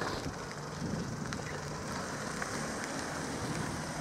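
Small Opel Corsa hatchback driving slowly past, its engine and tyres giving a steady low noise.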